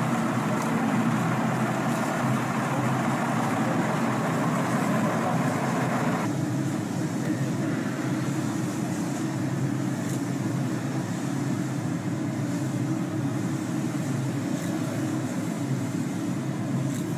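Steady engine drone with a constant low hum and a hiss over it; about six seconds in the hiss drops away suddenly, leaving the low drone running.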